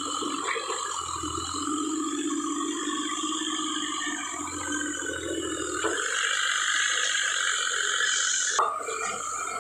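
A mini excavator's engine running steadily while it digs debris. The sound changes abruptly about six seconds in and again near the end.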